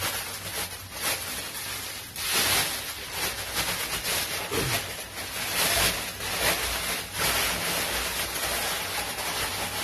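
Thin white plastic bag rustling and crinkling in uneven bursts as its knot is untied and it is pulled open around a wad of soaked, fermented ketapang (Indian almond) leaves.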